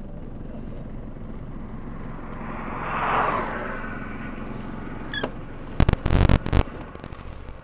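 Steady road noise from inside a moving car. A hiss swells and fades about three seconds in, and a quick cluster of loud thumps comes near the end.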